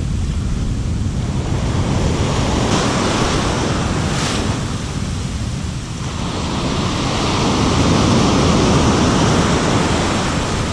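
Ocean surf breaking and foaming up the beach, with wind rumbling on the microphone; a wave washes in louder in the second half.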